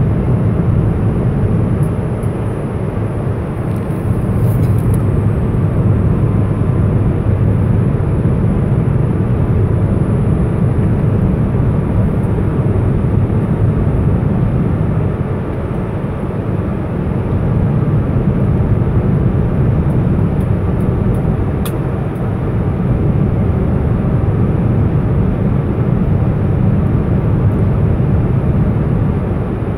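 Passenger airplane cabin noise during the landing approach: a steady low rumble of engines and airflow that swells and eases slowly every several seconds, with a faint click or two.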